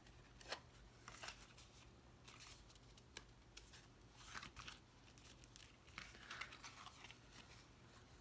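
Faint rustling and crinkling of cardstock being handled and folded as a paper box is assembled, in short scattered bursts, with a sharp tick about half a second in.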